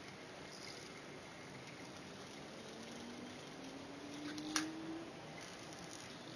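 Faint hum of a cluster of three small spinning gyroscopes being tumbled in the hand, the hum slowly rising in pitch through the middle, with a single sharp click of handling a little past halfway.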